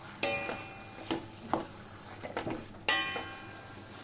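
Spatula knocking and scraping against the pan while stirring and roasting mashed potato halwa, with a few distinct knocks, two of which ring briefly; a light sizzle underneath.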